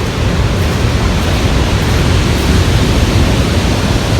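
Heavy ocean surf rumbling as large waves break on the beach at high tide, a steady deep wash that swells slightly midway.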